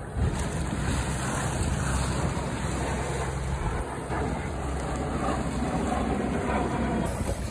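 Wind buffeting the microphone over the rush and slap of choppy water along the hull of a small sailboat under sail, a Buccaneer 18. It is a steady, noisy rumble with no engine.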